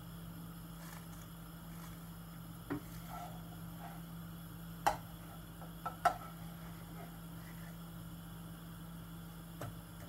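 Spatula knocking and scraping against a non-stick frying pan about five times while a pancake cooks, the sharpest knocks around the middle, over a faint steady hum.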